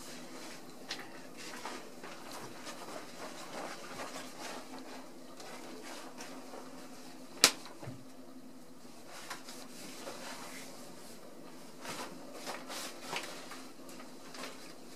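Faint, scattered taps and rustles of ragdoll kittens' paws and claws moving on a slick bathtub rim and against a shower curtain, with one sharp click about seven and a half seconds in, over a faint steady hum.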